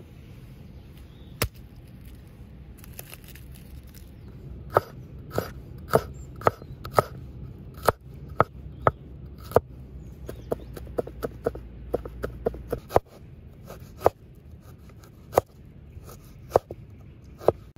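Steel cleaver chopping garlic cloves and ginger on a wooden cutting board: sharp single knocks of the blade on the wood, with a quicker run of lighter chops in the middle.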